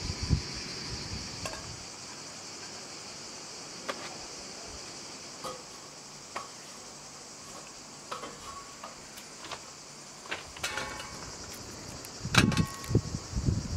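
A steady high buzz of cicadas, strongest in the first few seconds and fainter after, with scattered light clicks and knocks of handling. Near the end come a few louder knocks, some with a short metallic ring.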